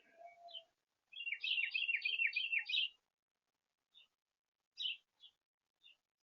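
A songbird at a feeder singing a quick run of about six downward-sliding notes, with short sharp call notes before and after.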